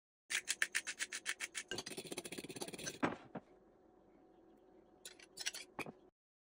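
A metal fork against a glass mixing bowl: rapid, even strokes at about ten a second while stirring a sauce, then a couple of sharp scrapes as the sauce is scraped out of the bowl. A few more clicks and scrapes come near the end.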